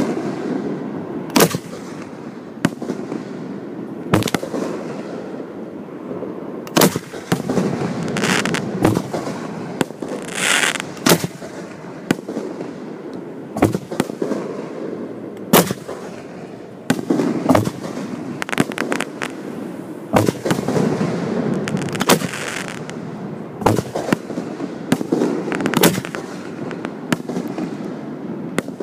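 Aerial firework shells firing and bursting overhead in quick, irregular succession, heard from close to the firing site: sharp bangs every second or so over continuous low noise.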